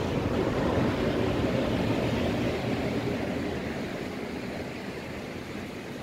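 Sea surf: rough waves breaking and washing onto a pebble beach, a steady rushing noise that grows a little quieter near the end.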